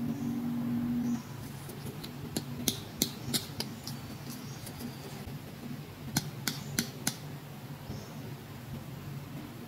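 Sharp clicks and taps of small plastic toy pieces being handled, in two quick clusters about two to three seconds in and six to seven seconds in, over a low steady hum. A louder low hum stops about a second in.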